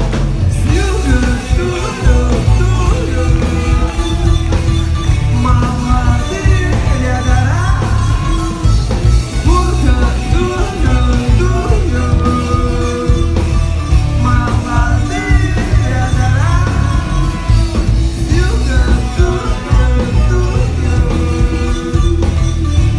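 Rock song with singing over heavy bass and a steady beat.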